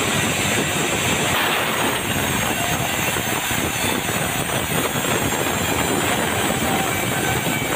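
Band sawmill blade cutting lengthwise through a dry bengkirai (yellow balau) log, a steady, even noise of blade in hardwood that runs without a break.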